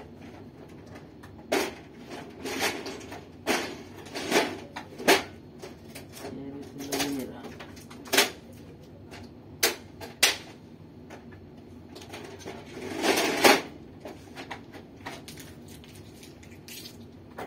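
Irregular metallic clinks and knocks of screws, a screwdriver and printer panels being handled while a laser printer is assembled at its base, with a longer rattle lasting about a second about three-quarters of the way through.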